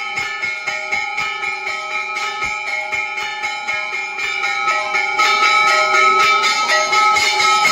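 Temple bells rung continuously for aarti, many overlapping ringing tones struck rapidly several times a second, growing louder about five seconds in.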